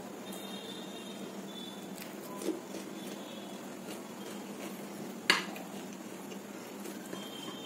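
Quiet sounds of eating by hand from crockery over a steady low hum, with a light knock about two and a half seconds in and a sharp clink of fingers against the dish about five seconds in, the loudest sound.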